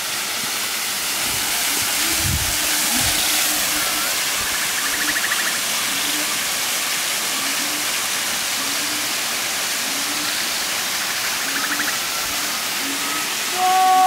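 Waterfall: water falling over rock ledges and splashing into a pool, a steady rushing hiss.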